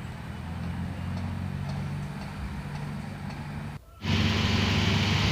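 Truck engine running steadily. About four seconds in the sound cuts out for a moment, then comes back louder with more hiss.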